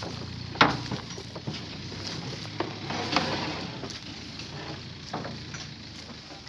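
Scattered knocks and clatter, with one sharp knock about half a second in the loudest, over a steady background hiss.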